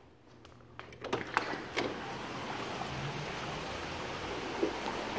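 A few clicks of a door latch and handle about a second in as a glass-paned French door opens, then a steady rushing noise from outside that stays at the same level.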